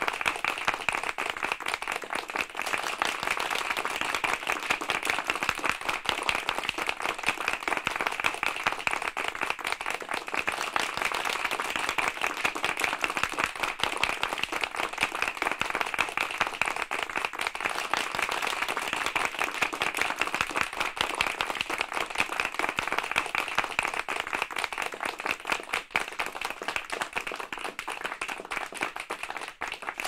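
A medium-sized group applauding loudly: dense, steady hand-clapping that keeps up without a break, dipping slightly just before the end.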